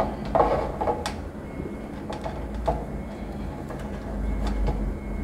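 A few light knocks and rustles as a metal washing machine capacitor and its wires are handled and set down on a table, over a steady low hum.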